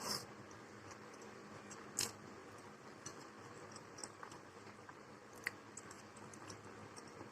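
Quiet eating sounds: chewing, with a few sharp clicks of a utensil against a plate, three of them louder, at the start, about two seconds in and past five seconds.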